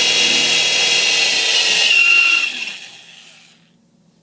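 Electric drill running at full speed, drilling into a metal bicycle seat post with a steady high whine. About two and a half seconds in it is let off and spins down to a stop.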